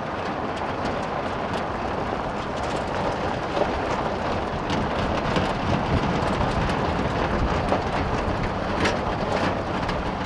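Pickup truck driving on a gravel road, heard from its open bed: a steady rumble of tyres on gravel with scattered small clicks and rattles.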